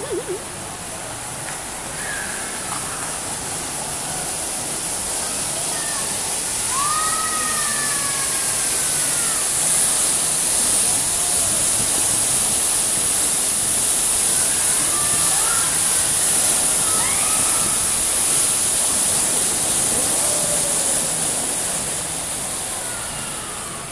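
Indoor fountain's water jets spraying and splashing back into the pool, a steady rushing hiss. It grows louder over the first ten seconds as a tall central jet shoots up, then dies away near the end.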